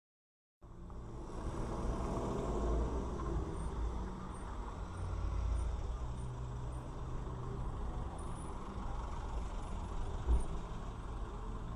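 Steady low rumble of a stopped car's idling engine and surrounding street traffic, heard from inside the car, starting after a brief silence. A single thump about ten seconds in.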